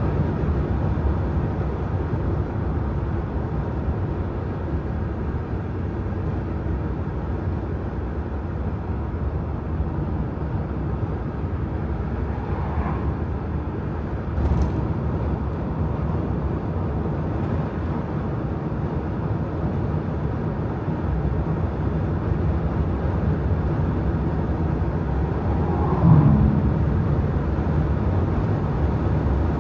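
Steady low rumble of a car driving at highway speed, road and tyre noise with the engine beneath, heard from inside the car. A faint click comes about halfway through, and a brief pitched sound near the end.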